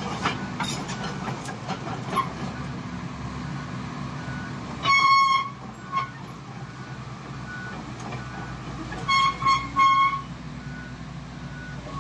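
Kobelco SK75 mini excavator's diesel engine running steadily while the machine works, with a horn sounding over it: one long toot about five seconds in, three short toots around nine to ten seconds, and another long toot at the end. Faint short beeps repeat in between.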